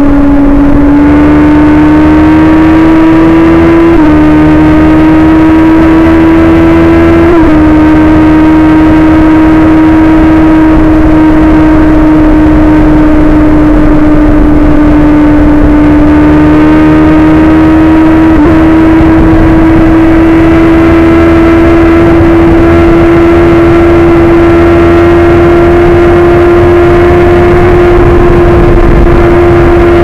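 Suzuki GSX-R1000's inline-four engine and exhaust running hard at high revs under steady throttle. The pitch holds high and creeps slowly upward, broken briefly three times.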